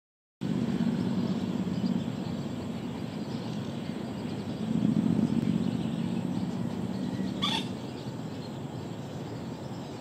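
Steady low outdoor rumble, with a single short bird call about seven and a half seconds in.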